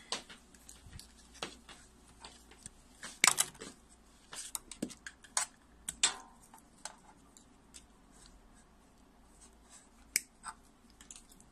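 Scattered small clicks and taps of hand work on a plastic wiring connector, at irregular intervals, with a louder cluster about three seconds in.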